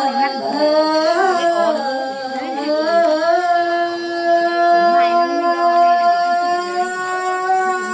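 A solo voice singing a slow lượn folk melody, gliding between notes, then holding one long steady note for about four seconds before sliding down near the end.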